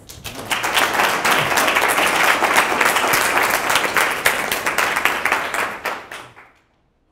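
Small audience applauding, a dense patter of handclaps that dies away about six seconds in.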